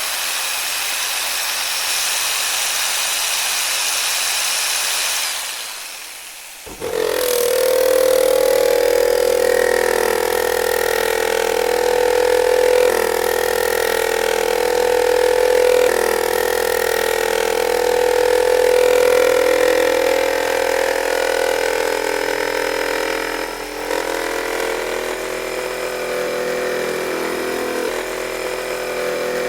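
Electric jigsaw: a steady hiss for about five seconds, then the motor starts suddenly about seven seconds in and runs with a steady whine, shifting slightly now and then.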